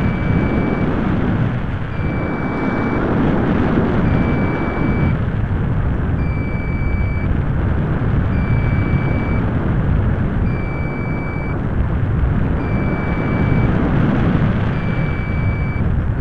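Airflow rushing over the microphone of a small keychain camera riding on a balsa RC glider in flight: a loud rumbling wind noise that swells and eases. Over it, a high electronic beep about a second long repeats roughly every two seconds.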